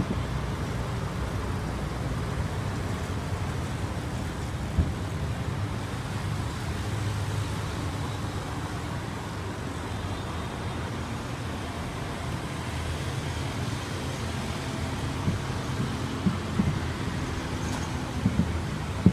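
Steady road traffic of cars and motorbikes passing, a continuous low rumble. A short sharp knock sounds about five seconds in, and a few more come near the end.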